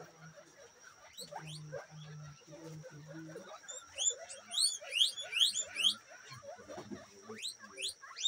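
A herd of guinea pigs calling while they feed: low pulsed rumbles in the first few seconds, then many short rising squeaks overlapping, loudest in a burst from about four to six seconds in. A faint steady high tone runs underneath.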